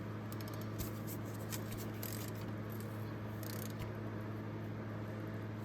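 Faint, irregular scraping and light clicking of hand tools and parts being handled against metal, over a steady low electrical hum.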